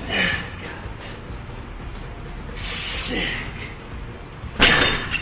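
A man's forceful hissing exhales, one with each twist of a heavy plate-loaded barbell: three breaths, the middle one longest and the last one near the end sharpest and loudest.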